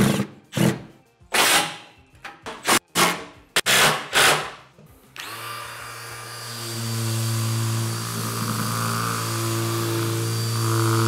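A series of short noisy strokes, then a handheld power tool's electric motor starts about five seconds in and runs steadily, getting louder a second or so later.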